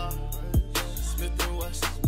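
Hip-hop backing track with no vocals in this stretch: deep kick drums that drop in pitch and a steady beat of sharp drum hits over held synth notes.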